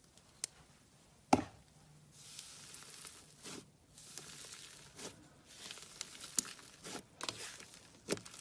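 Slime being squeezed and worked by hand: soft crackling with scattered sticky clicks and pops, the loudest a single sharp pop about a second in.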